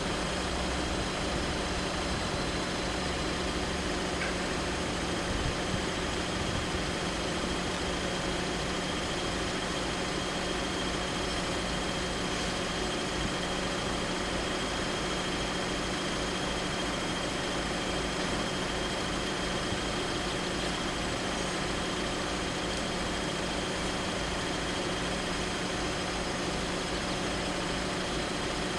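Road vehicles idling: a steady hum under a constant broad hiss, with no change or distinct event.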